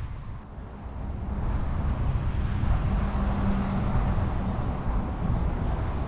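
Road traffic going by: the noise of a passing vehicle's engine and tyres swells over the first couple of seconds, then holds steady.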